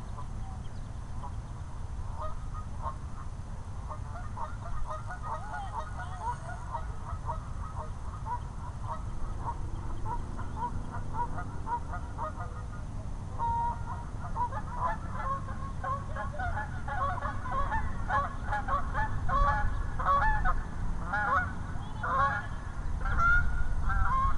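A flock of geese honking, many short calls overlapping, growing denser and louder about halfway through, over a steady low rumble.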